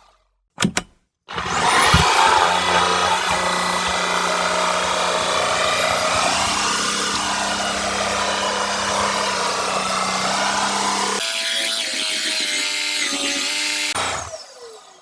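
Shark EVOPOWER SYSTEM iQ+ cordless stick vacuum switched on about a second in, its high motor whine rising to speed, then running steadily with the brush-head noise of sucking up hair. The sound changes about eleven seconds in, and near the end the vacuum is switched off, its whine falling as the motor winds down.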